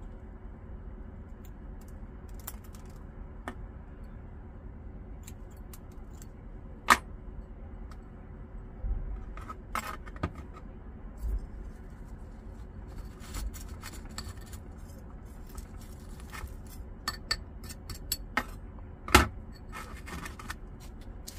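Small metal scissors snipping a succulent's roots, with scattered light metal clicks of the scissors and tweezers against the tray; two sharper clicks stand out, about seven seconds in and near the end.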